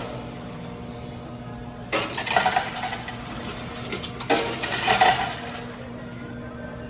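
Coins clattering and clinking in a coin pusher arcade machine, in two bursts about two seconds apart, over the machine's steady electrical hum.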